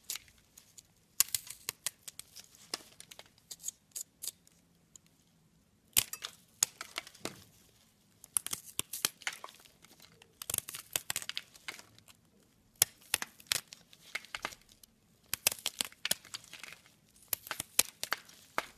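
A craft knife cutting through a dry, crumbly soap cube with a chalky white crust, made to look like floral foam and gypsum. It goes in short bursts of crisp crunching and crackling, about every two seconds, with brief pauses between the cuts.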